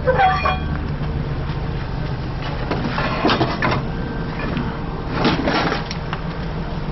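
A heavy vehicle's engine running steadily, with two bouts of crunching and creaking, about three seconds in and again about five seconds in, as the wreck is shifted.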